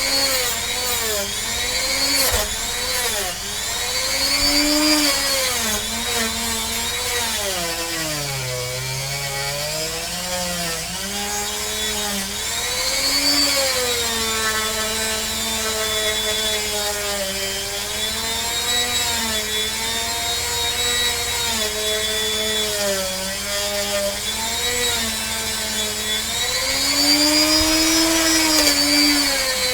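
Handheld rotary tool running against a pewter cast. Its motor whine dips and recovers in pitch over and over as it is pressed onto the metal and eased off, over the gritty rub of the abrasive on the pewter.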